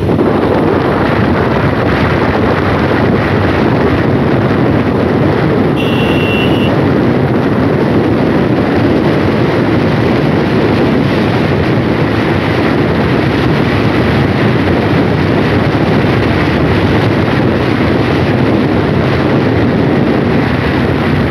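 Steady rushing wind noise buffeting the microphone on an open boat, with a brief high tone about six seconds in.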